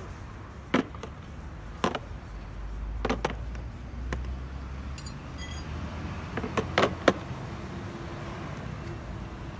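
Steel parts of a hand swaging tool being handled and refitted, giving a series of sharp metallic clinks and knocks, a few close together, over a steady low hum.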